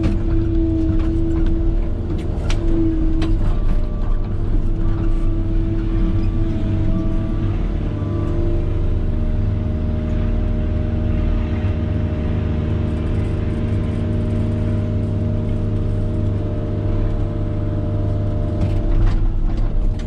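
Diesel engine of heavy earthmoving equipment running steadily under load, with a few sharp clanks in the first few seconds.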